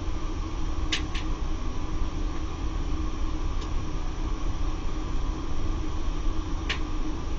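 Laddomat 21 wood-boiler loading unit with its circulation pump running: a steady hum over a low rumble. Three short sharp ticks sound, two close together about a second in and one near the end.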